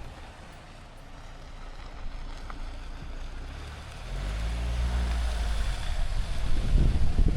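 Kia Sportage driving: low rumble of engine and road noise with wind buffeting the microphone. About four seconds in, an engine note rises slightly and the sound grows louder.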